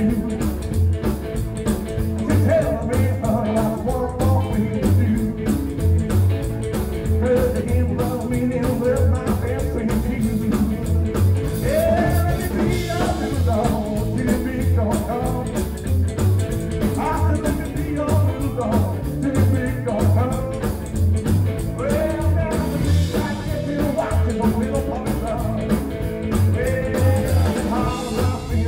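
Live rockabilly band playing: an upright double bass keeps a steady thumping beat under an electric guitar.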